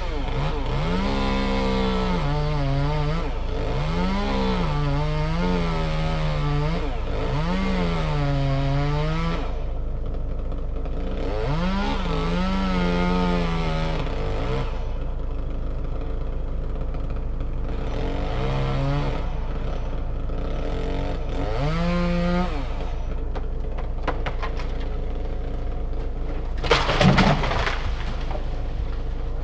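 Chainsaw revving up and falling back again and again, in repeated bursts of a second or two, over the steady low drone of an idling engine, with a brief loud clatter near the end.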